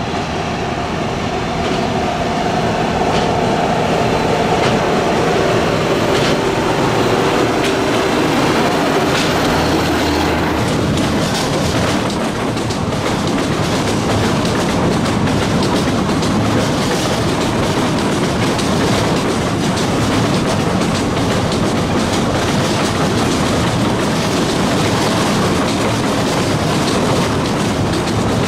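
Bord na Móna narrow-gauge peat train passing close by: first the diesel locomotive's steady engine note as it draws near, then, from about a third of the way in, a long rake of empty peat wagons clattering and rattling over the rail joints.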